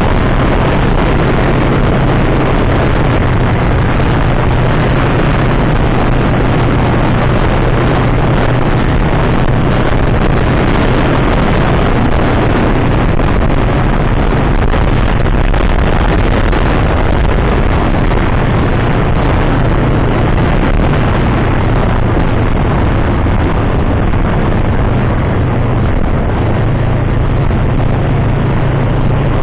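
Yamaha R3 motorcycle ridden at road speed: a steady rush of wind over the microphone with the parallel-twin engine's hum underneath, its note changing a few seconds before the end.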